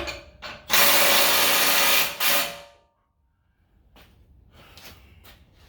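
Handheld power tool running in two bursts: one of about a second and a half, then a short one of about half a second. A few faint clicks follow.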